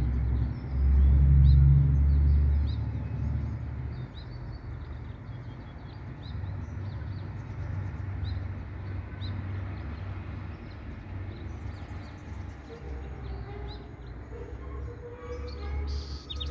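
Small birds chirping over and over, short high notes about twice a second, over a steady low rumble that swells loudest for a couple of seconds near the start. A quick trill of rapid clicks comes near the end.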